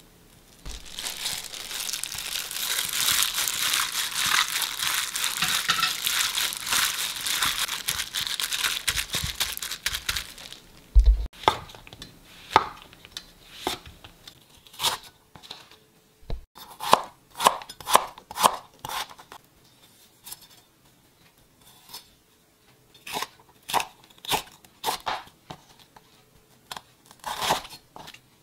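About ten seconds of dense crackling, rustling noise, then a chef's knife slicing shiitake mushrooms and vegetables on a wooden cutting board. The knife strokes are separate sharp knocks, some single and some in quick runs of about two a second, with short pauses between runs.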